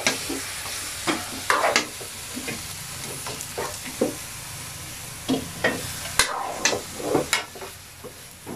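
Chopped duck meat and onions sizzling in a metal wok while a metal cooking spoon stirs and scrapes against the pan in irregular strokes: the duck being sautéed before the lid goes on.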